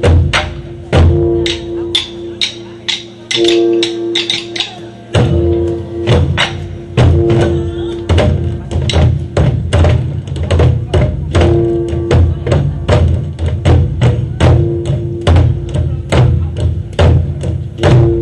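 Korean barrel drums (buk) beaten by an ensemble in a driving rhythm meant to evoke galloping horse hooves, sharp strikes over deep booms with a recurring ringing tone. The strokes grow denser and heavier about five seconds in.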